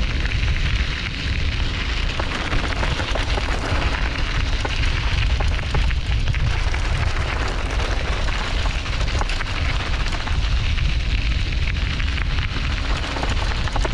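Wind buffeting the action-camera microphone, with the clatter of a Giant Revel mountain bike rolling fast downhill over loose rocks. There are many small knocks and rattles on top of a steady rushing rumble.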